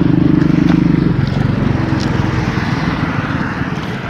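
A small engine running steadily with a pulsing beat, dropping away about a second in, over rustling and scraping with a few sharp clicks.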